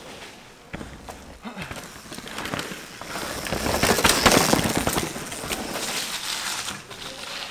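A mountain bike riding over rough, rocky trail: tyre noise on dirt and stones with rattling clicks, growing to its loudest about four seconds in, then easing off.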